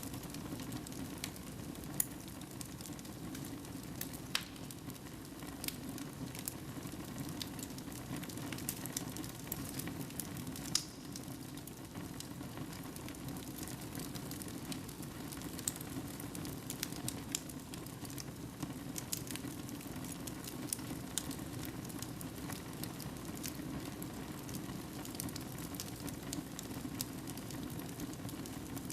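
Fire burning in a fireplace, crackling, with irregular sharp pops over a steady low rush of the flames.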